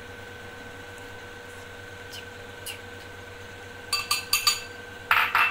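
A metal spoon clinking against a stainless steel mixing bowl: a quick run of ringing taps about four seconds in, then a short, louder scrape near the end. A faint steady hum runs underneath.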